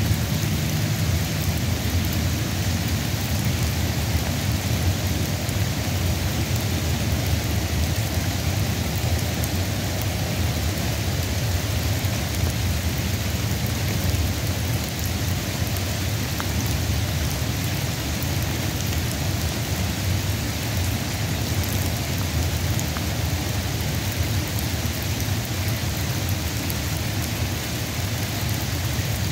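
Steady rain shower falling, an even hiss with a steady low rumble underneath.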